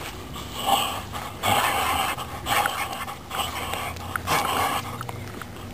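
A large dog panting close to the microphone, in uneven breathy huffs about one a second.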